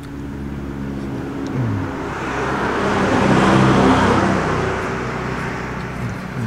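A motor vehicle passing on the road, its engine note and tyre hiss building to a peak about three and a half seconds in, then fading.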